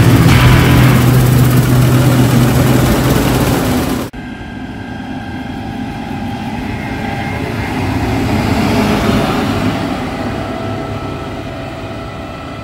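John Deere T560i combine harvester running close by, loud and steady; after a sudden cut about four seconds in, the combine drives past on a road, its sound building to a peak past the middle and then fading as it moves away.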